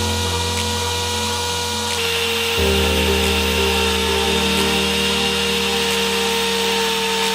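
A power tool running steadily, with background music playing.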